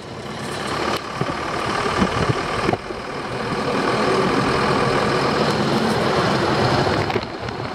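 Wind and road noise rushing past an open window of a moving vehicle, with its engine running underneath. The noise grows louder over the first few seconds, then holds steady, with a few light knocks.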